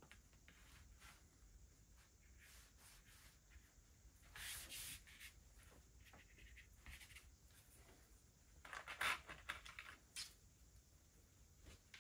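Faint, dry scratching and rustling strokes with near silence between them. Two louder bursts come about four and a half seconds and nine seconds in.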